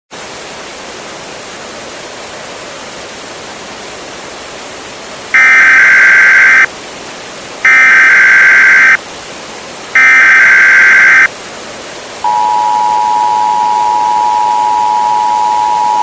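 Emergency Alert System broadcast signal over a steady static hiss: three bursts of SAME digital header data tones, each about a second and a half long, then about 12 seconds in the EAS attention signal starts, a steady two-tone alarm that keeps sounding.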